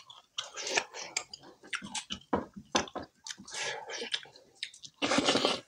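Close-up wet chewing and lip-smacking of someone eating chicken kebab and rice with his fingers: many short irregular smacks and clicks, with a louder, longer wet burst about five seconds in.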